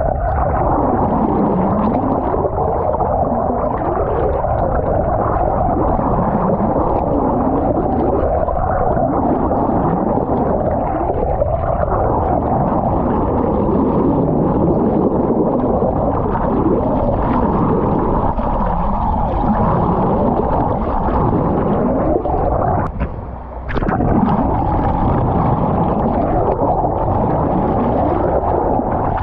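Muffled underwater sound picked up by a submerged waterproof action camera: a steady wash of water noise with repeated low swooping sounds, rising and falling every couple of seconds, and a short drop-out late on.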